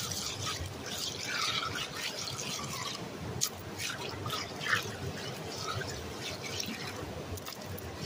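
Gravel being washed by hand through a gold prospecting classifier screen in a tub of muddy water: water sloshing and splashing, with scattered small clicks of stones knocking together.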